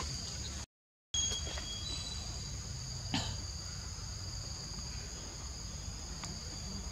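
Steady, high-pitched chorus of insects, holding two constant tones, with a brief cut to silence about a second in and a single sharp click a little after three seconds.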